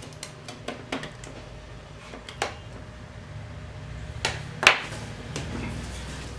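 Small sharp clicks and taps of hands and a tool working on the parts of an opened laptop hard disk while it is being refitted, one click about two-thirds of the way in louder than the rest, over a low steady hum.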